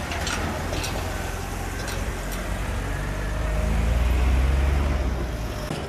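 Low rumble of a motor vehicle's engine on the road, growing louder from about three seconds in and easing off near the end.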